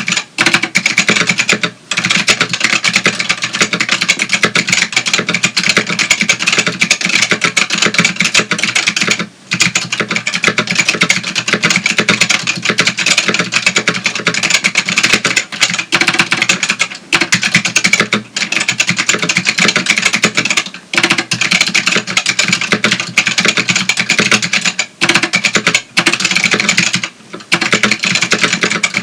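Fast continuous typing on a Matias Tactile Pro 4 keyboard with Matias Click switches, clones of white Alps switches: a dense run of sharp clicks, broken by a few short pauses.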